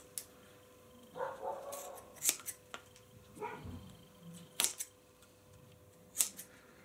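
Scissors snipping through a foam handlebar grip cover, several short, sharp snips at irregular intervals with soft handling rustle between them.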